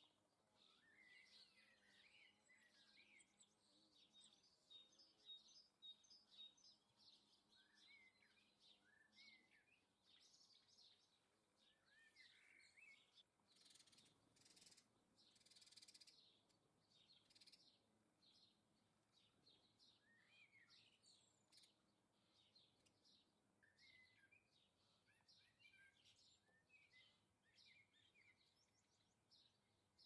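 Faint chirping and twittering of small garden songbirds, many short calls scattered throughout, with a brief rushing noise about halfway through.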